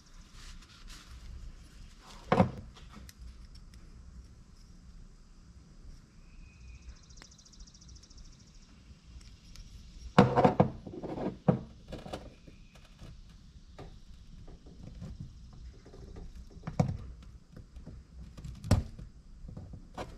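Workbench handling noises as a metal camshaft thrust plate is wiped with a rag and its old O-ring is worked at with a pick: scattered knocks and clunks, one about two seconds in, a cluster of louder ones around halfway, and two sharp clicks near the end.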